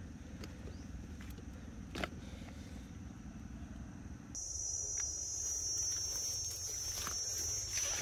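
A steady low hum like a small motor running, with one sharp click about two seconds in. About four seconds in the hum breaks off suddenly and a steady high-pitched insect buzz takes over.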